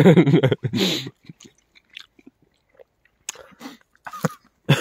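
Someone chewing a mouthful of grilled sausage close to the microphone: scattered soft, wet chewing and mouth clicks after a brief spoken word at the start.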